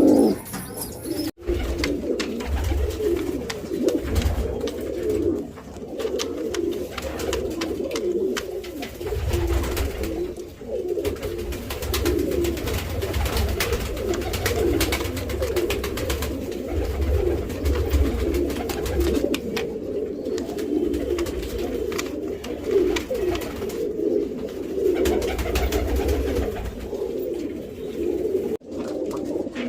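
Several pigeons cooing without a break, their low coos overlapping, over a low rumble and scattered light clicks.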